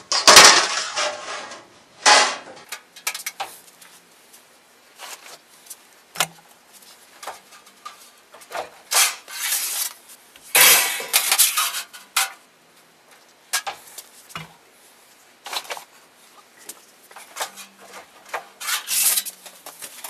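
Galvanized sheet metal clattering and rattling in irregular bursts as it is handled and bent on a hand sheet-metal brake, turning a drive tab along its edge.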